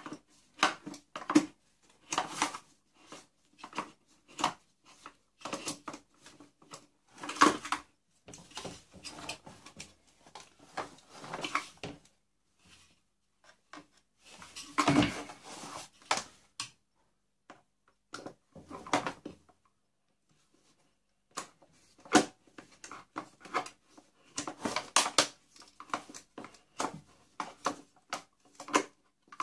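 Plastic and metal parts of an industrial vacuum cleaner's motor assembly being handled and pried apart by hand: irregular clicks, knocks and rattles, with the loudest knocks about seven and fifteen seconds in and a quiet pause a little past halfway.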